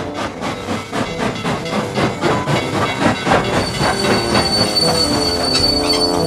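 Cartoon sound effect of a steam locomotive running: fast, even chuffing and clacking at about four to five beats a second. A steady high squeal of the wheels joins a little past halfway as it pulls up.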